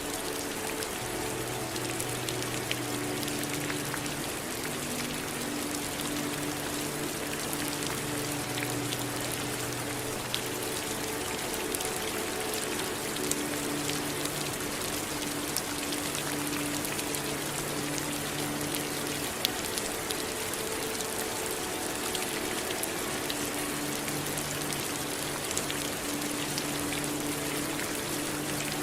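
Steady rain falling, an even hiss with scattered sharp drop ticks. Low, soft held tones run underneath and change pitch every few seconds.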